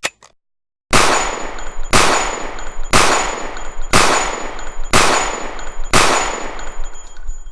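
A few quick clicks, then six loud gunshots evenly spaced about a second apart, each followed by a long fading tail and a thin high metallic ring.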